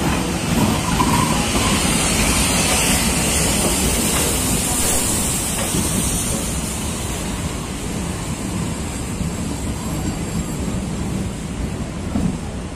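A steam locomotive pulling out past the platform, loudest with a steady hiss as the engine goes by, then its train of vintage wooden-bodied passenger coaches rolling past on the rails.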